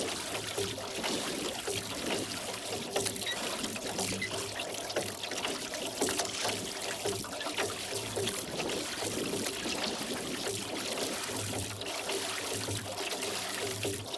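Water trickling and splashing around a rowboat as it is rowed, the oars dipping and dripping.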